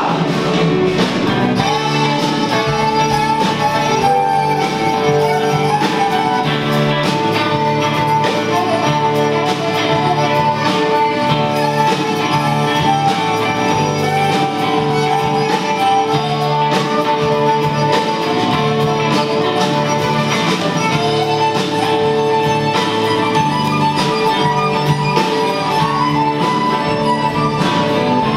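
Blues harmonica playing long held and bending notes over two acoustic guitars.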